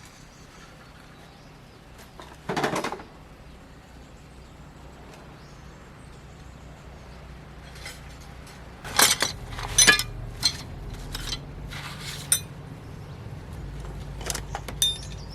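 Metal tools and tractor parts clinking and clanking as a hook is fitted. There is a dull knock a few seconds in, then a cluster of sharp metallic clanks a little past halfway and a few more near the end, over a low steady hum.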